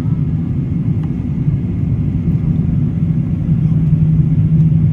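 Steady low cabin rumble inside a moving vehicle, with a constant low hum that grows louder about three and a half seconds in.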